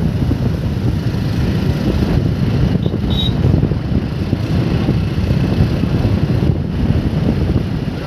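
Steady low rumble of wind buffeting the microphone, mixed with the running noise of a vehicle moving along a road.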